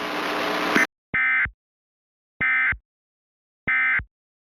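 A hiss that cuts off just under a second in, then three short identical bursts of buzzy digital data tone about 1.25 seconds apart: the EAS SAME end-of-message code that closes an Emergency Alert System alert.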